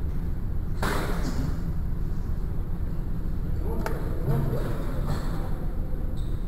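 Steady low rumble of wind and handling noise on the microphone, with a sudden rustle about a second in and one sharp crack about four seconds in. Faint voices can be heard around the crack.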